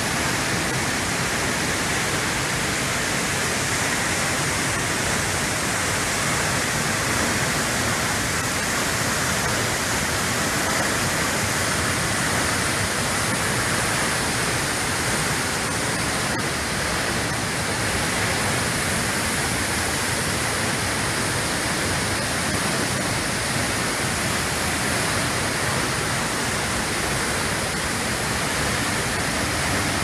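A tall waterfall dropping into a pool below, making a steady, even rush of water that doesn't change.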